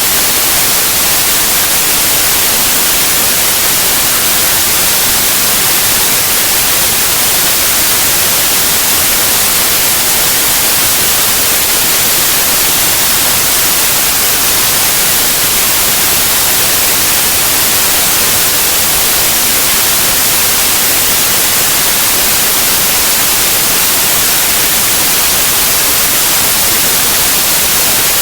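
Steady, loud white noise: an even hiss that holds constant throughout, brightest in the treble.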